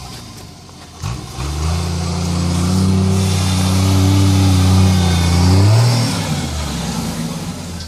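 1977 Jeep CJ-5's 3.8-litre straight-six engine pulling through snow. It comes in strongly about a second in, rises slightly in pitch and holds steady. It is loudest as the Jeep comes closest, then drops in pitch and eases off about six seconds in.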